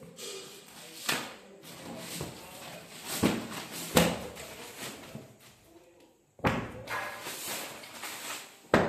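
Plastic courier mailer and wrap crinkling and rustling as they are pulled off a bundle of folded carpets, in several sudden bursts with knocks of handling.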